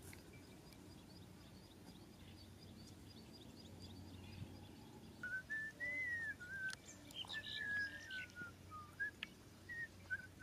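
Faint whistling of a wavering tune, one pitch line gliding up and down, starting about halfway through. Before it, a faint, regular series of high chirps, a few a second.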